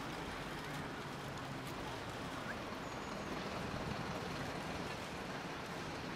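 Steady, distant city traffic noise.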